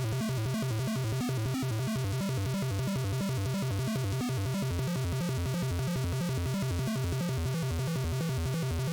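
Background electronic music with a steady, rhythmic beat.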